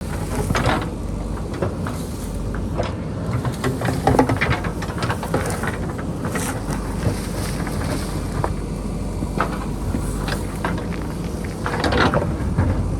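JCB backhoe loader's diesel engine running steadily, with scattered knocks and scrapes of rock and earth as it digs into a boulder-strewn hillside. The loudest knocks come about a second in, about four seconds in and near the end.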